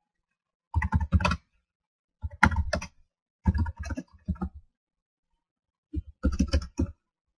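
Computer keyboard typing: four short bursts of rapid keystrokes with pauses between them.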